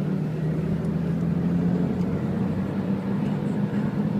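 Car engine running steadily while the car drives through floodwater on the road, with water rushing under and around the tyres, heard from inside the cabin. The engine note steps up slightly about halfway through.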